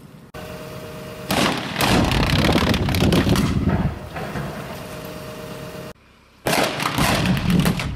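Two rock blasts set off under blasting mats. The first comes about a second in, a loud blast followed by a few seconds of rumble and crackling rock. The second comes near the end as a sharp burst with a rattle of debris. Between them an excavator's engine runs steadily.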